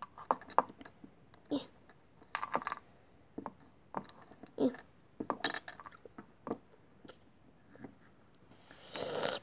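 Irregular light clicks and taps of a plastic toy horse figure being handled and moved against toy stable fences, with a short hissing rush near the end.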